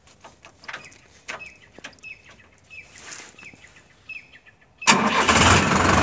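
Sonalika DI 750 Sikander tractor's diesel engine started with the key, catching suddenly about five seconds in and then running loud at low revs. Before it, birds chirp briefly a few times and there are a few faint clicks.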